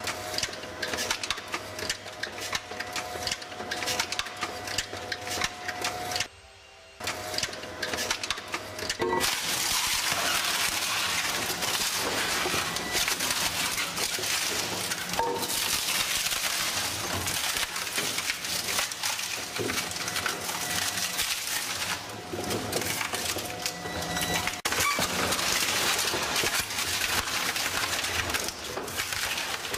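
Industrial shredder crushing and breaking material: dense cracking and crunching over a steady hum. The sound drops out briefly about six seconds in, then returns denser and louder from about nine seconds on.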